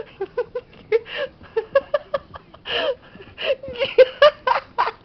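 A person laughing softly in short, breathy bursts, with light taps in between.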